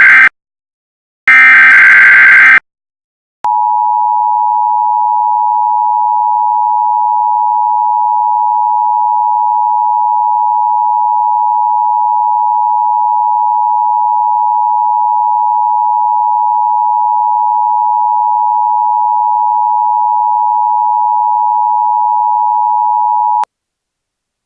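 Emergency Alert System tones: the end of one warbling SAME data-header burst and a second full burst, then, about a second later, the steady two-tone attention signal, held for about twenty seconds and cutting off abruptly near the end.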